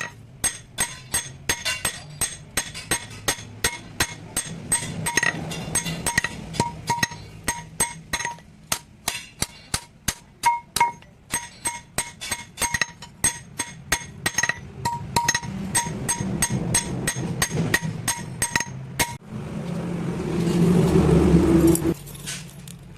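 Blacksmith's hammer striking steel on an anvil in a steady run of blows, about two to three a second, each blow leaving a bright metallic ring, while forging a hasua sickle blade. Near the end a louder rushing noise builds for about three seconds and then cuts off.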